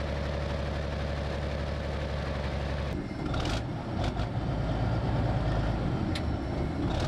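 BMP-2 infantry fighting vehicle's diesel engine idling steadily. About three seconds in, the sound changes to a rougher engine noise with a few sharp metal clanks.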